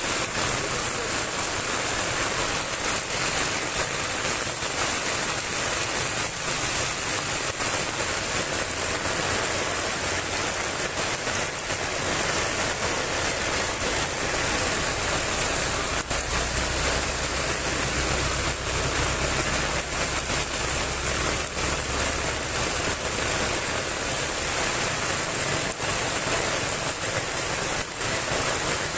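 Heavy typhoon rain pouring down onto a road, a steady loud hiss. About halfway through, the low rumble of a vehicle engine joins it for several seconds.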